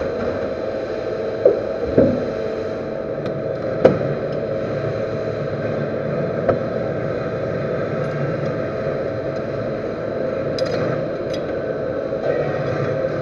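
Metal lathe running with a steady hum, with a few sharp metal knocks and clinks as parts are handled and set up on it; the loudest knock comes about four seconds in, and lighter clicks follow near the end.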